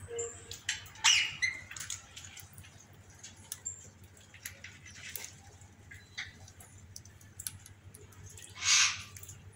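Indian ringneck parrots squawking in an aviary: two short, loud, harsh squawks, about a second in and near the end, with scattered faint chirps and clicks between them.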